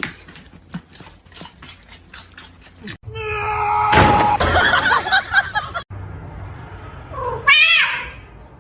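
A domestic cat meowing, with one loud, bending meow near the end. Before it come a run of sharp clicks and taps and a louder, noisy stretch of cries, split by abrupt cuts.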